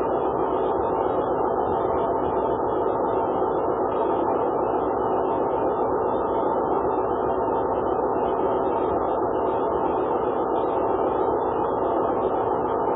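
Steady, muffled hiss with a faint hum in it: the noise floor of a Dropcam home-security camera's microphone picking up an otherwise quiet room.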